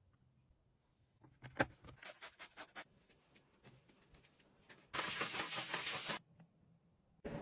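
Handling a flat spray mop: a string of light clicks and taps, then about a second of steady hiss.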